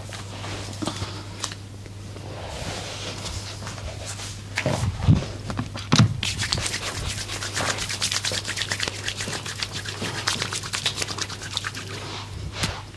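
Hands working quickly over skin in a massage: a fast, even run of short rubbing strokes, several a second, over a steady electrical hum. Two louder thumps come about five and six seconds in.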